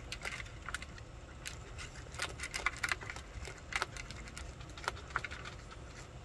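A raccoon eating dry kibble from a plastic bowl: irregular crunches and clicks as the food is chewed and pawed about in the bowl.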